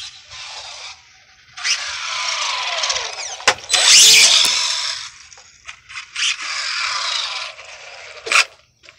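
Traxxas Bandit RC buggy's electric motor whining with tyre noise as it speeds toward and past at high speed, with a sharp knock about three and a half seconds in and the loudest noise just after. The motor whines again for a couple of seconds later on, and there is a sharp click near the end.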